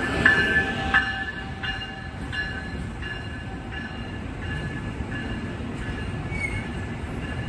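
Amtrak passenger train passing at speed behind a Siemens ACS-64 electric locomotive, the coaches rumbling by. Their wheels clack over the rail joints about every 0.7 s, each clack briefly ringing. The sound is loudest as the locomotive goes by and eases off about two seconds in.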